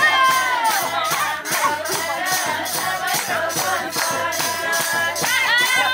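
Music: a wavering, bending melody over a fast, steady high-pitched beat.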